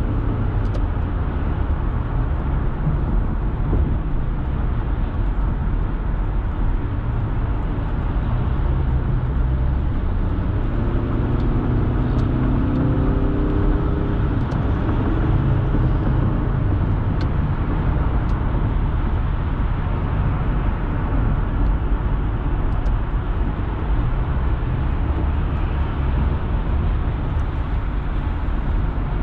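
Steady road and tyre noise with a low engine drone, heard inside the cabin of a car cruising at highway speed.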